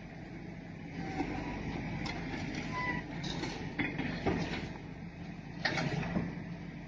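Heavy machinery engine running steadily, with several sharp knocks and clanks through it.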